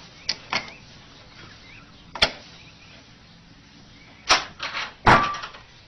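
Latch and door of a wooden puzzle box knocking and clattering as a cat works its way out: two light clicks at the start, a sharp knock about two seconds in, then loud knocks and clatter near the end, the last with a brief squeak.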